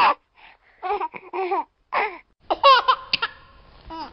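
High, laugh-like squeals in quick runs of several short calls, with gaps between the runs; the loudest, fastest run comes about two and a half seconds in.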